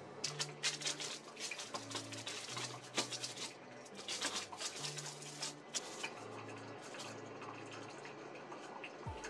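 Crisp, freshly baked crackers being snapped apart along their scored lines by hand, a quick run of sharp cracks and crumbly crackles that thins out after about six seconds. Soft background music plays underneath.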